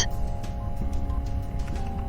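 Soft background music: sustained held notes that change pitch in steps, over a low steady hum.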